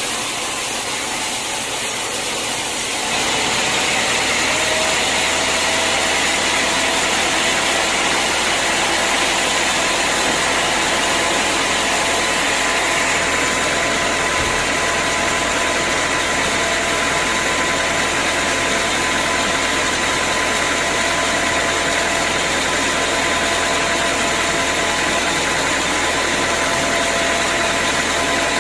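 Sawmill machinery running steadily with a constant whine, stepping up in loudness about three seconds in and then holding steady.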